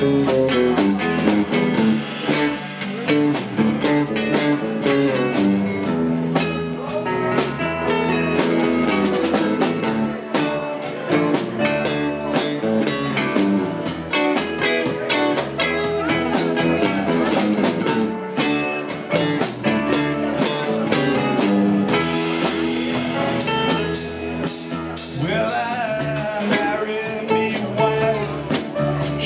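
Live rock band playing with electric guitars, drum kit and keyboard.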